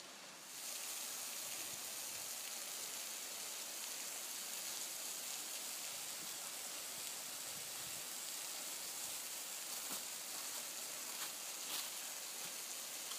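Thin waterfall spilling over a rock ledge and splashing onto the rocks below, running low: a steady, even hiss of falling water.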